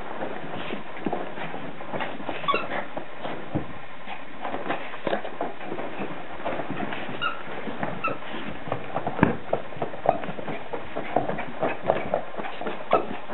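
Yorkshire terrier scrabbling at and tugging a cloth sheet on carpet: irregular rustling and scratching, with a few short high-pitched squeaks, over a steady hiss.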